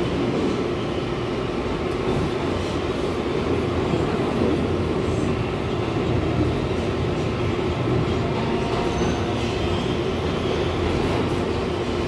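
R142A subway car running at speed through a tunnel, heard from inside the car: a steady rumble of wheels on rail with a faint steady hum underneath.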